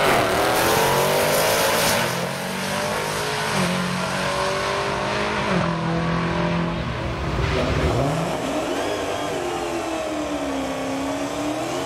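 Modern HEMI V8 drag cars running at a dragstrip. The first two seconds are loud with engine and tyre noise, then the engines settle into steadier running, their pitch falling and rising as they are revved.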